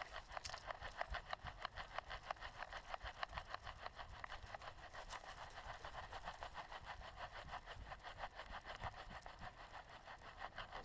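A dog panting fast and evenly, several quick breaths a second, close to the microphone, over a low rumble of movement.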